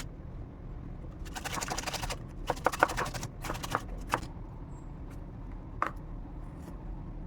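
Tomato being grated on a hand grater: a quick run of scraping strokes, then a few separate strokes and knocks, over a low steady hum.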